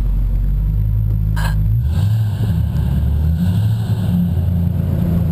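1996 Ford Mustang GT's 4.6-litre V8 running at low revs through an off-road X-pipe and SLP Loudmouth mufflers, a loud low exhaust note that shifts in pitch about two seconds in and again a little later.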